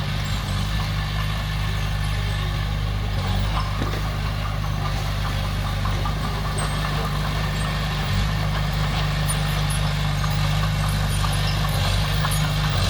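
Diesel engine of heavy earthmoving machinery running steadily, with a low, even drone that grows slightly louder toward the end.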